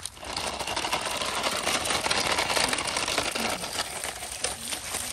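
Toy radio-controlled off-road car driving over dry leaves and gravel: its small electric motor and plastic gears whir and rattle, with a dense crackle of leaves and stones under the tyres.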